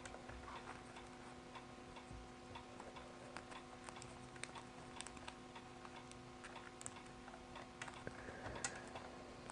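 Faint, irregular light clicks and taps of cables and rig parts being handled while the cabling is tidied, over a steady low hum.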